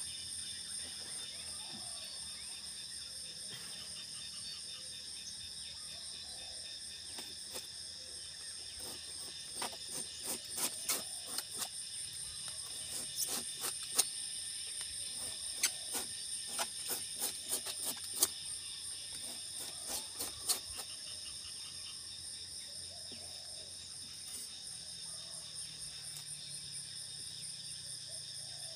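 Steady high-pitched chorus of insects shrilling on several steady tones throughout. From about 9 to 21 s comes an irregular run of sharp clicks and knocks as a knife works the cut end of a sugar palm's flower stalk, shaving it to renew the sap flow.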